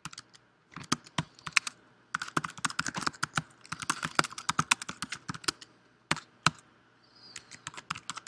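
Typing on a computer keyboard: quick runs of keystrokes in bursts, with short pauses between commands, and two separate key presses a little after the middle.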